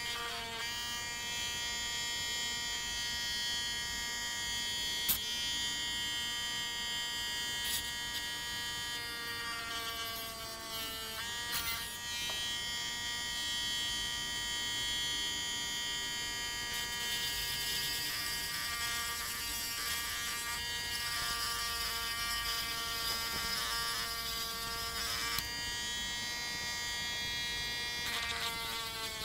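Small handheld rotary tool's motor whining steadily as its grinding stone sands the edge of a plastic SIM card, with a few sharp clicks where the bit catches. The pitch sags slightly a little past a third of the way in and again at the very end as the bit is pressed into the card.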